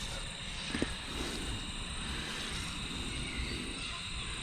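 Quiet outdoor background: a steady high insect drone over a low rumble, with one faint knock a little under a second in.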